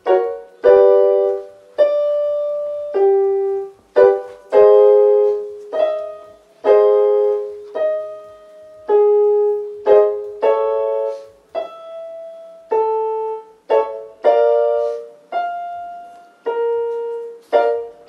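Electronic keyboard playing piano notes and chords about one a second, each struck and then fading, in a short pattern repeated at changing pitches: the accompaniment for a two-note lip-trill vocal warm-up.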